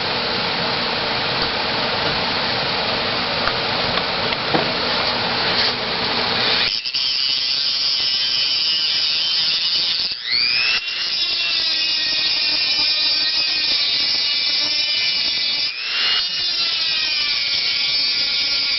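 Dremel rotary tool with an abrasive cut-off disc cutting through 1/4-inch steel rod. There is a harsh grinding noise for the first several seconds, then a high-pitched whine that dips and climbs back twice.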